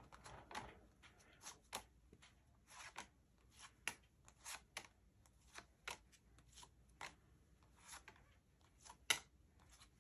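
Minoan Tarot cards being laid down one by one onto a spread, each landing on or sliding over the others with a faint slap or click, about one or two a second, with a sharper one near the end.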